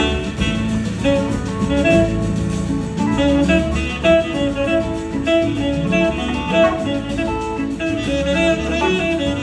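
Live band playing a blues-rock number: electric guitar and saxophone playing together over drums and bass.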